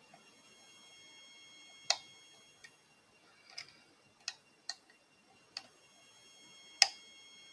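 Lock pick and tension wrench working in a Mul-T-Lock Integrator padlock: about seven sharp metal clicks, the two loudest about five seconds apart, each followed by a brief high metallic ring.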